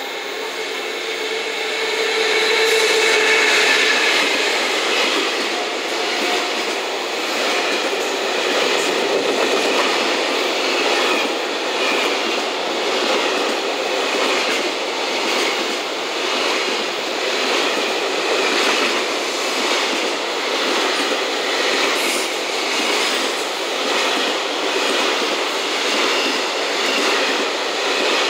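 EF210 electric locomotive passing close by, loudest a few seconds in, followed by its long train of container wagons running past with the wheels clicking over the rail joints in a steady repeating rhythm.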